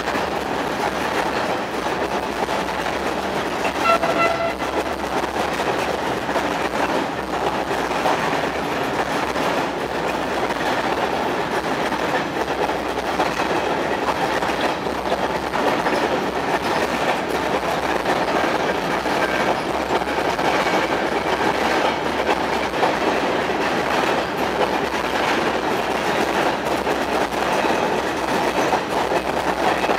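Long freight train of covered sliding-wall wagons rolling past at steady speed: a continuous rumble of wheels on the rails. A brief pitched tone sounds about four seconds in.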